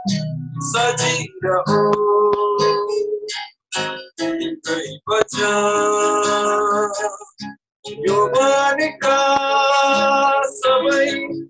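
A man sings a Nepali Christian hymn in long held phrases, with short pauses between lines, while strumming an acoustic guitar.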